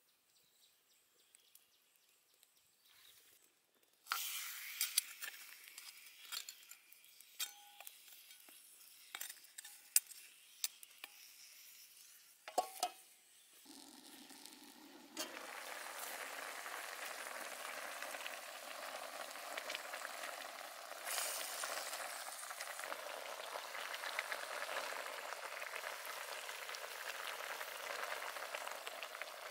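A whole roasted duck cooking in a wok of liquid with pineapple and lemongrass. After about four seconds of quiet the wok sizzles with crackling and sharp clicks. A metal lid clinks on about twelve seconds in, and from about fifteen seconds a steady sizzling simmer runs on.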